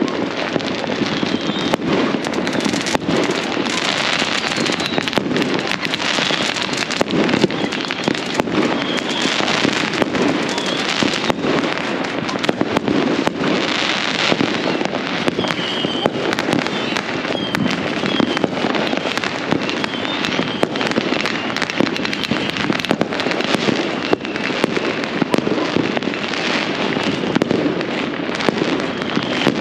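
Many fireworks and firecrackers going off at once: a dense, unbroken crackle of overlapping bangs and pops with no pause.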